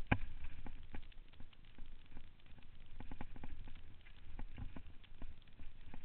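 Mountain bike riding over rough trail: irregular knocks and rattles from the bike jolting over the ground, over a steady low rumble. A sharp knock right at the start is the loudest.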